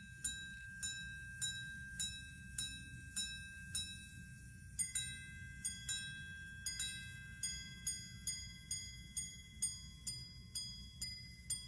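Minute repeater of a platinum Audemars Piguet Grand Complication pocket watch chiming the time on its gongs: about seven evenly spaced low strokes for the hours, then about five seconds in, two-tone strokes for the quarters and a quicker run of higher strokes for the minutes, each note ringing on briefly.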